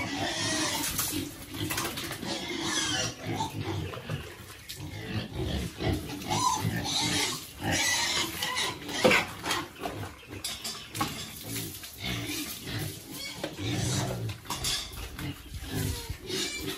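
Pigs grunting on and off, in uneven bursts.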